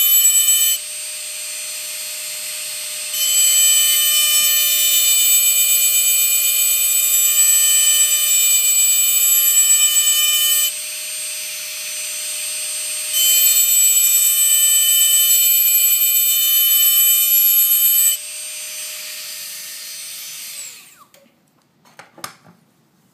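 Foredom rotary tool engraving glass: a steady high whine, with louder, harsh high grinding in three long stretches and quieter running between. The tool spins down and stops about 21 seconds in, followed by a couple of light clicks.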